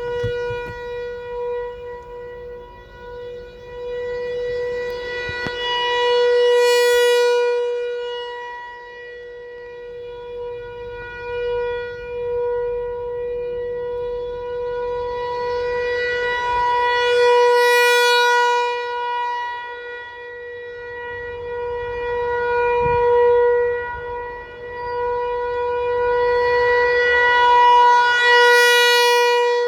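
American Signal ASC-T135 rotating electromechanical outdoor warning siren sounding one steady, unchanging tone at full speed. Its loudness swells and fades about every eleven seconds as the rotating horn sweeps toward and away from the listener.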